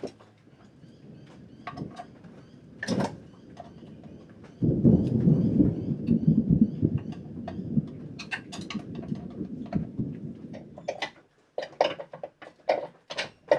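Thunder: a sudden low rumble about four and a half seconds in that dies away over several seconds. Scattered clinks and knocks of hand tools on an outboard motor come before and after it.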